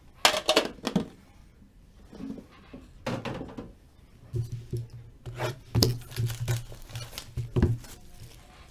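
Cardboard card boxes and their packaging being handled on a table: irregular rubbing, scraping and light knocks.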